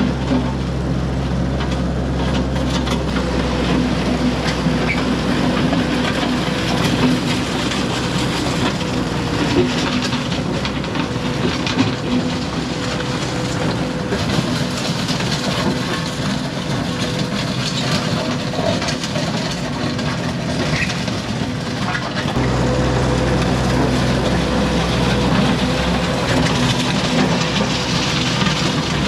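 Mini skid steer's engine running steadily under work, with a continuous rattle of the machine and bucket working gravel. The low engine note grows fuller about three-quarters of the way through.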